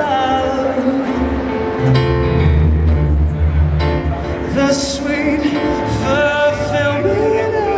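A man singing a song live, accompanied on a grand piano.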